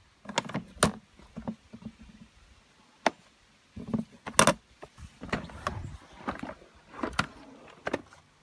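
Irregular clicks, knocks and short rattles of tools and parts being handled during work on a robotic lawn mower's drive motor, with the loudest knocks about halfway through.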